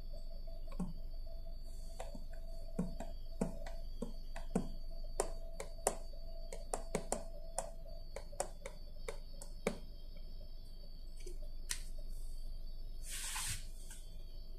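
Cabin of a stationary Toyota Coaster minibus with its engine idling: a steady low hum and a faint steady tone. Irregular sharp clicks, several a second, run through the first two thirds, and a short hiss comes near the end.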